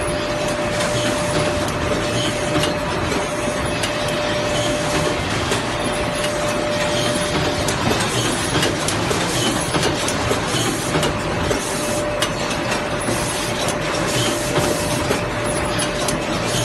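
Automatic sanitary napkin bagging machine running: a steady mechanical clatter with frequent sharp clicks over a constant thin hum, which drops out briefly about eight seconds in.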